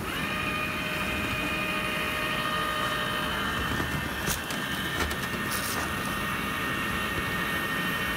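Gas grill's rear infrared rotisserie burner lighting and burning: a steady rush of gas flame with a steady whistling tone, starting suddenly at the outset.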